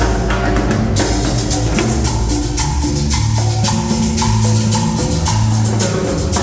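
Upbeat dance music with a bass line and a steady beat of hand percussion.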